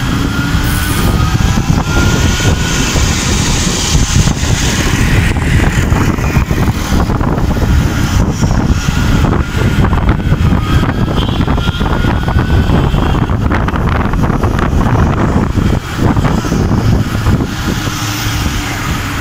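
Ultraviolette F77 electric motorcycle on the move: a loud, steady rush of wind and road noise, with a faint whine that rises in pitch a few times.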